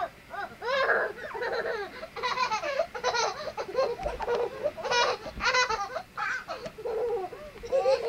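Small children squealing and laughing in short, high-pitched bursts as they wrestle on the floor, with a few low bumps about halfway through.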